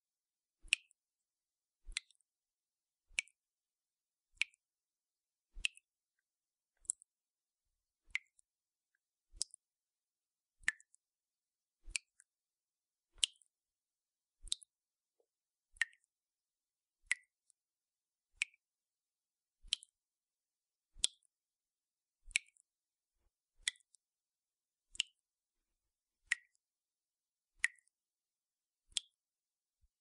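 Water dripping from a leaking tap: single drops landing at an even pace, about one every 1.3 seconds, each a short sharp drip with a brief ringing pitch.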